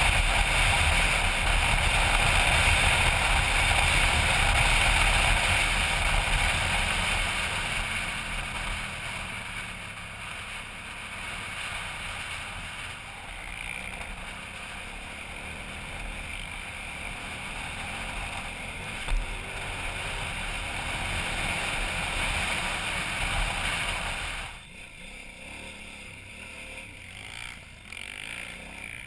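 KTM 990 Adventure's V-twin engine running under way, heard through a helmet-mounted camera with heavy wind rushing over the microphone. It is loudest for the first several seconds and then eases off, with one sharp knock partway through, and drops abruptly near the end.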